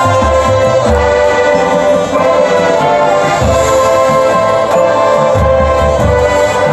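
Marching band playing its field show: brass ensemble holding loud sustained chords over low bass notes that come and go.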